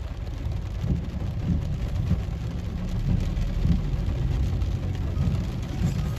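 Car moving on a wet road, heard from inside the cabin: a steady low rumble of engine and tyres, with rain on the windscreen.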